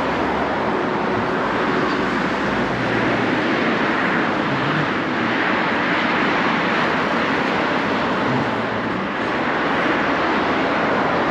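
Steady, loud rush of city street traffic, with no single vehicle standing out.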